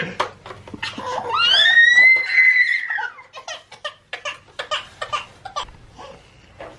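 A toddler's long high-pitched squeal that rises and then falls, followed by a run of short clicks and taps.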